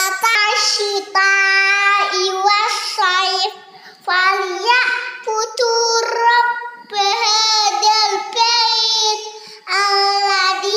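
A young girl's voice chanting Arabic prayer recitation in a high, sing-song tone, in held phrases of a second or two with short breaks between them.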